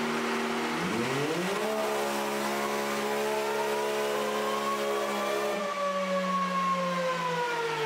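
Can-Am Maverick X3 Turbo's turbocharged three-cylinder engine doing a dyno pull. It runs steadily, then revs up sharply about a second in and keeps climbing under load. About five and a half seconds in the throttle is let off and the revs wind slowly down.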